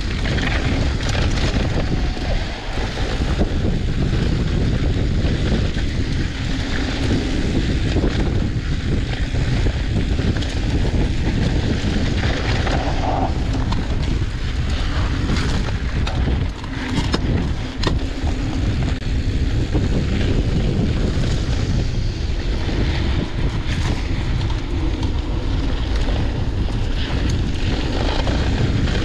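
Wind rushing over the microphone of a mountain bike at speed, with the tyres rolling over loose, dusty dirt and scattered clicks and knocks from the bike over bumps.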